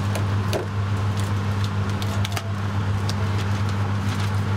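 Steady low hum of food-truck kitchen equipment, with scattered light clicks and clinks over it.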